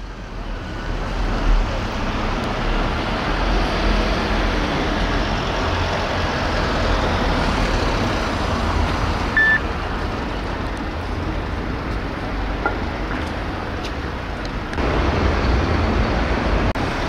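Road traffic on a city street: a steady rush of passing vehicles. A brief high beep sounds about halfway through, and the traffic gets louder near the end.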